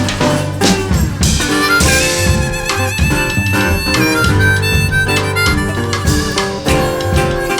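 Acoustic blues band playing an instrumental break: a harmonica plays the lead with long held, bending notes over guitar, double bass and drums.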